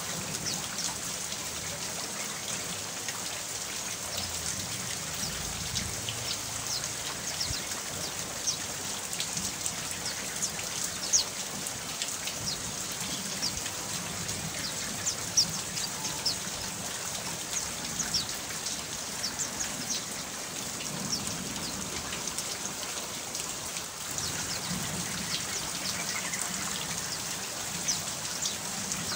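Steady rain falling, with many separate drops ticking and a few louder single drops.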